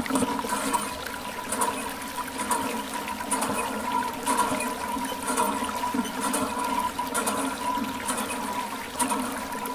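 Water streaming from a plastic tube and splashing onto muddy toy vehicles and wet ground, over a steady hum.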